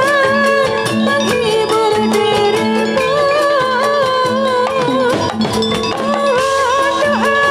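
Javanese Jathilan accompaniment music: rapid drum strokes, a low note repeating about twice a second, and a sustained wavering melody line over them.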